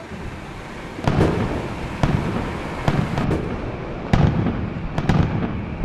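Aerial firework shells bursting, a sharp bang about every second, each trailing off in a low rumble; the loudest bang comes about four seconds in.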